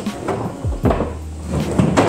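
Background music with a deep bass line and a heavy beat.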